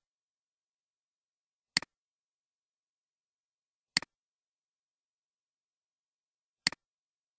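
Computer mouse clicks: three sharp clicks two to three seconds apart, each a press followed at once by a fainter release click, with dead silence between.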